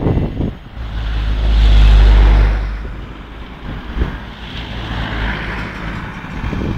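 Steady road and wind noise from a moving vehicle, swelling into a loud low rumble about two seconds in, then easing and rising again around five seconds.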